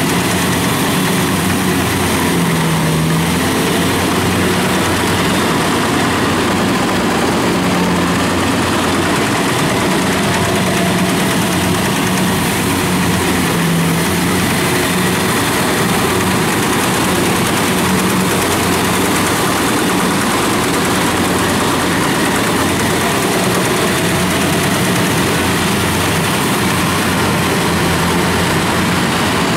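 Kubota DC-70 combine harvester's diesel engine running steadily as it cuts and threshes ripe rice, mixed with the engine of a tracked rice-sack carrier running close alongside.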